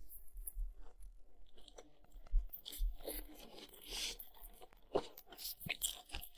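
Someone biting and chewing food: irregular sharp clicks and short, noisy mouth smacks.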